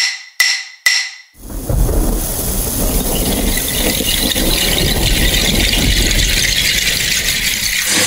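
Opening of a dance-routine mix over the hall's speakers: three bright, bell-like ringing hits about half a second apart, then a dense rumbling, hissing noise effect like thunder and rain that builds for about six seconds.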